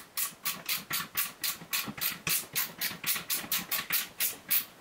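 A hand screwdriver being turned quickly to tighten a bolt through a wooden plate. It makes an even run of short, rasping clicks, about four a second.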